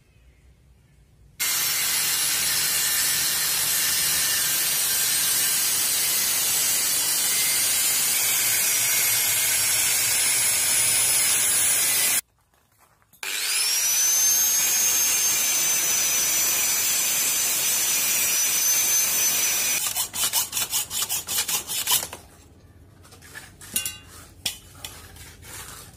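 Handheld angle grinder with a cutting disc cutting through a bicycle frame tube: a loud, harsh grinding noise over a high motor whine. It stops briefly just past the middle, then starts again with the whine rising as the disc spins up, and near the end it breaks into a couple of seconds of rapid chatter before stopping, leaving a few light clicks of metal tubes being handled.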